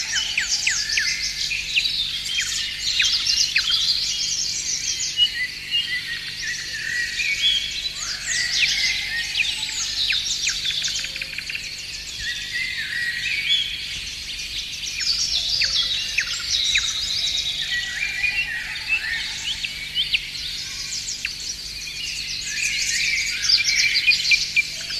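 A dense chorus of many songbirds chirping and trilling at once, their calls overlapping the whole time, over a faint steady low hum.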